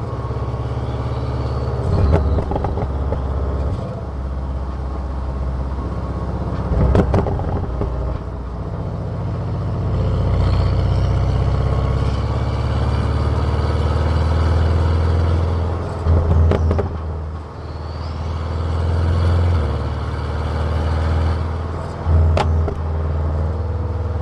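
Car exhaust heard close to the tailpipe: a steady low engine note that steps up and down in pitch several times as it runs, with faint rising whines. Short loud knocks or buffets come four times.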